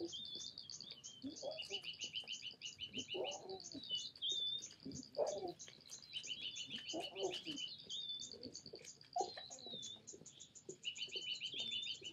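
Lion cubs giving short calls about every two seconds, the loudest near the middle and about two-thirds of the way through, over a steady chorus of birds with fast repeated high chirps and trills.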